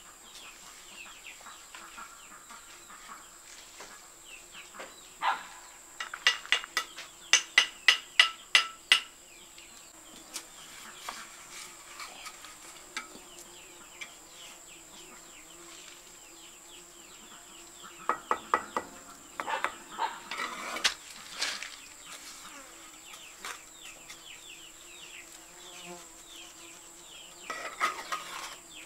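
Steel mason's trowel tapping and clinking on fired clay bricks as they are set in cement mortar, in runs of sharp taps about three a second. A steady high insect drone and scattered bird chirps run underneath.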